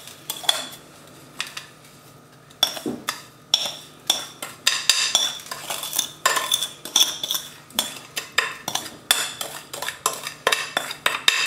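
A spoon scraping and clinking against a glass mixing bowl as a coarse salt-and-sugar cure is scooped and tipped out. It comes as an irregular run of clicks and scrapes with a ringing glassy tone, sparse at first and busier from about two and a half seconds in.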